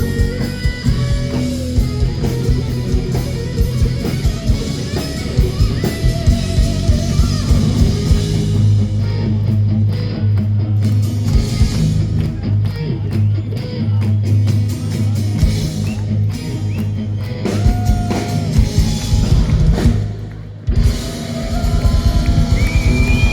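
Live rock band playing, with guitar and drum kit keeping a steady beat; the music drops out briefly near the end, then comes back in.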